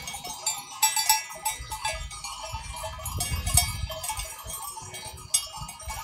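Many bells worn by a large flock of sheep clanking and jingling irregularly as the animals move and graze.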